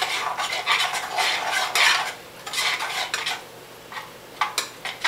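A spoon stirring and scraping curry sauce in a saucepan in quick, uneven strokes, with a few sharp clinks of the spoon against the pan near the end.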